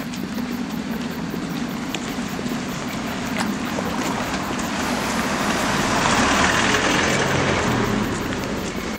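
A road vehicle passing by, its tyre and engine noise swelling to a peak about six to seven seconds in and then fading away.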